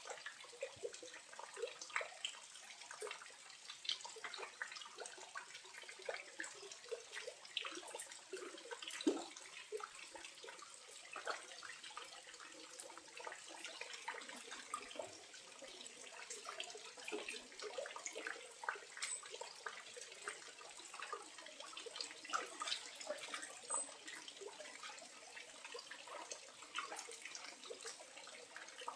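Small waterfall running at low flow: water trickling and splashing steadily over rock, with many small drips and splashes and almost no deep rumble.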